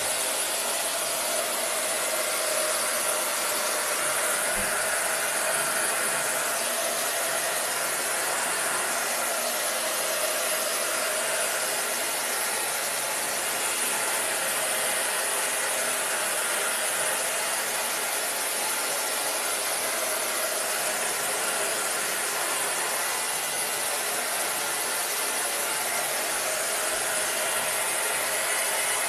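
Hand-held hair dryer running steadily, blowing air over freshly worked craft paint and glue to dry it; it switches off at the very end.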